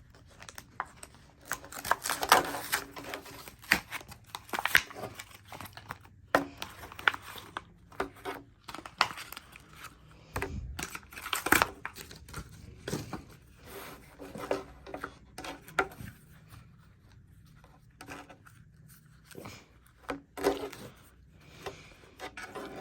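Post-it note pads and their packaging being handled: irregular crinkling, rustling and tearing of paper and wrapping, in short sharp bursts, with a quieter few seconds about three-quarters of the way through.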